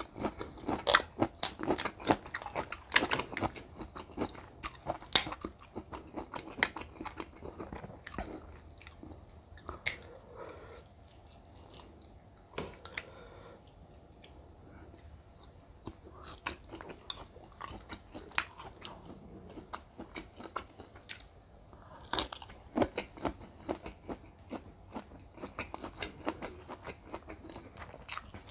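Kitchen scissors snipping and fingers cracking the hard shell of a grilled giant river prawn's claw, close to the microphone: a run of sharp clicks and crunches, sparser for a few seconds in the middle, then cracking again with chewing near the end.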